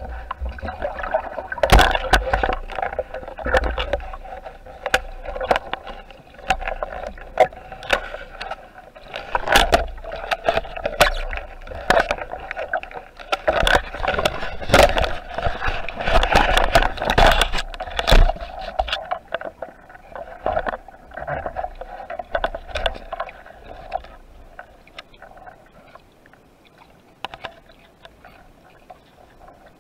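Seawater sloshing and splashing heard through an underwater camera housing, with many sharp clicks and knocks, from a spearfisher swimming at the surface; it grows quieter over the last several seconds, once below the surface.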